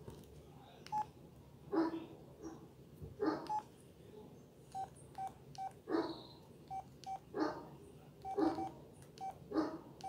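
Pantech Link feature phone's key tones: short single-pitch beeps as its navigation keys are pressed to step through the menus, mixed with the soft clicks of the key presses.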